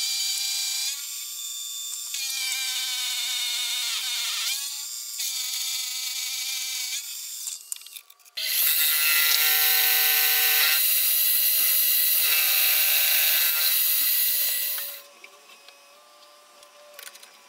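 Milling machine's indexable face mill cutting metal blocks: a high-pitched ringing whine that dips and recovers in pitch. It drops away briefly about 8 seconds in, then comes back as a louder, brighter cut until about 15 seconds in, after which only a faint steady hum is left.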